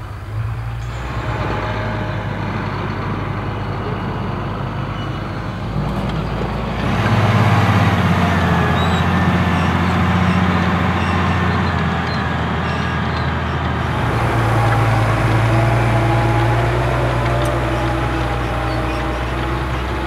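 Massey Ferguson 7715 Dyna VT tractor's diesel engine running steadily while working a reversible plough. The engine note gets louder and changes abruptly about a third of the way through, then shifts again about two thirds of the way through.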